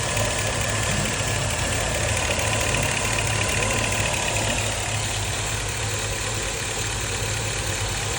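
GMC vehicle's engine idling steadily with an even low hum.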